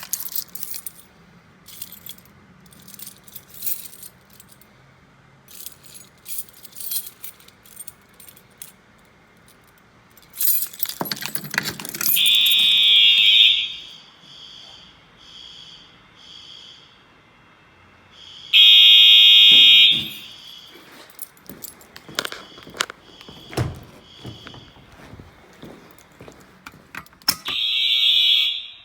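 Fire alarm horns sounding in a fire alarm system test. Three loud steady horn blasts, each about a second and a half long, come about twelve seconds in, about six seconds later, and near the end, with fainter horn sounds about once a second between them. Clicking and rattling fill the first half before the horns.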